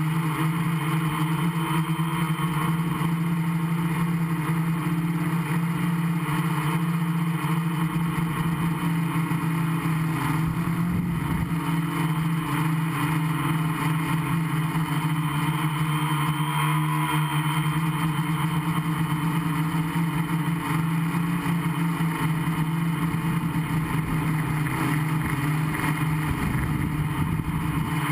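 Gaui 500X quadcopter's electric motors and propellers buzzing steadily in flight, recorded from the airframe itself, the pitch shifting slightly now and then as the throttle changes.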